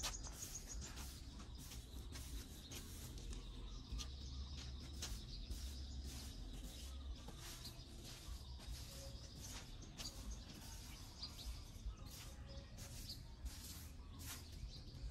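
Stiff broom sweeping dry leaves and grit across paving in short, irregular scraping strokes, with birds chirping in the background.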